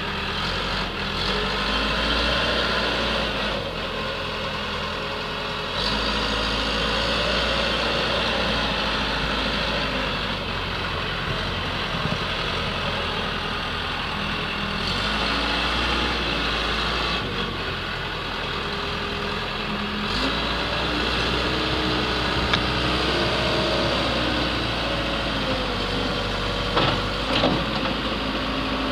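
Case 580L backhoe's diesel engine running, its speed changing up and down several times, with a few short knocks near the end.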